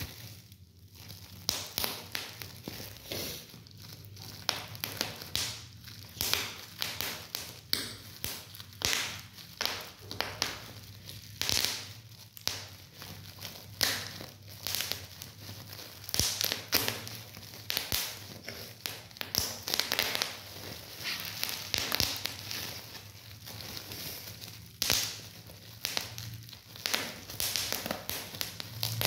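Plastic bubble wrap being squeezed and twisted by hand, crinkling, with many sharp, irregular pops as the bubbles burst.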